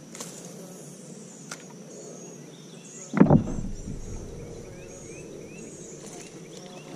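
Insects droning steadily with birds chirping. A couple of sharp clicks come in the first second and a half, and a short low thump about three seconds in.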